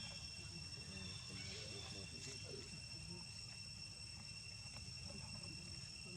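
Insects trilling steadily in the background as a constant high-pitched whine, with a low rumble underneath.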